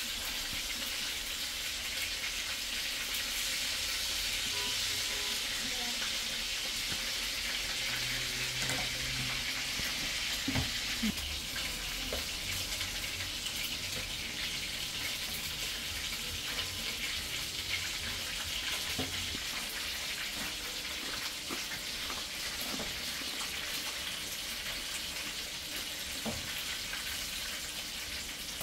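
Chicken wings sizzling steadily in hot oil in a frying pan on a gas burner. Now and then a utensil clicks against the pan as the wings are turned and lifted out.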